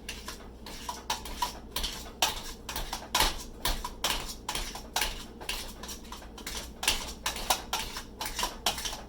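A metal kitchen utensil knocking and scraping against a pot again and again, two to four irregular strikes a second, as boiled potatoes are mashed and mixed with butter and milk.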